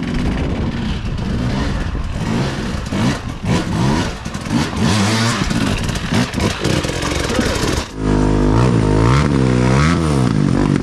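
Enduro motorcycle engine revving, the pitch rising and falling unevenly. About eight seconds in it gets louder and the revs swing up and down in quick repeated blips.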